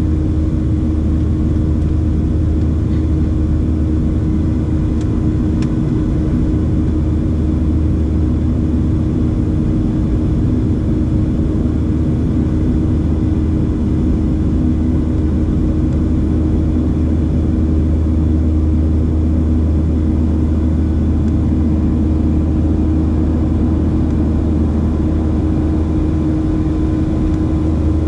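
Boeing 737-700's CFM56-7B engines heard from inside the cabin: a steady, loud drone with a low rumble and a constant hum.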